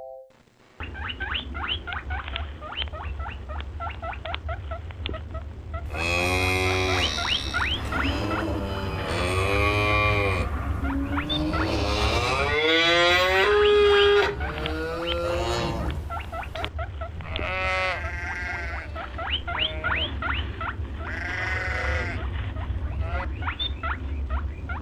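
Goats bleating: short calls at first, then longer, louder, quavering bleats in the middle, over a steady low rumble.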